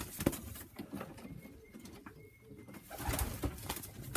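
Pigeons cooing in a loft, with scattered clicks and knocks.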